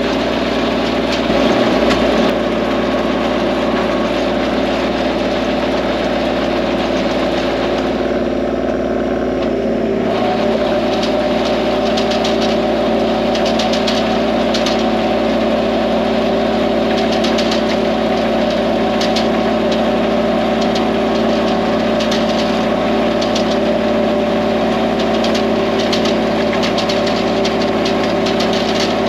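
Diesel tractor engine running steadily under load, with a brief change in its tone about a third of the way in and repeated clicking and clatter after that.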